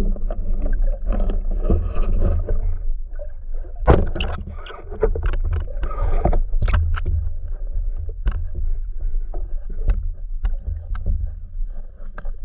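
Muffled underwater noise: a steady low rumble of water movement with scattered clicks and knocks, the loudest about four seconds in.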